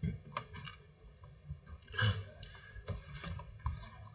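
A few faint, scattered clicks and knocks over a low steady room rumble.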